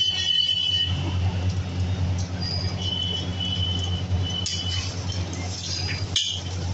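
Metal spatula scraping and tapping on a flat iron griddle as an egg paratha is folded over, with thin metallic squeals and a couple of sharp clicks in the second half. A steady low hum runs underneath.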